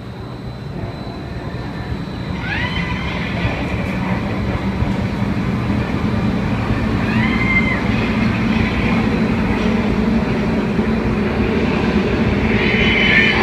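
Hurricane simulator's fan-driven wind rushing through the enclosed tube, growing steadily louder as it builds up. Brief high-pitched cries rise and fall over it about two and a half seconds in and again around seven seconds.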